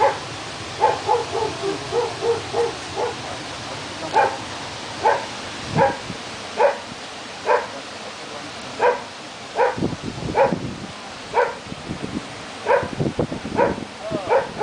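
A dog barking repeatedly, single barks roughly once a second, with a quick run of short yips about a second in.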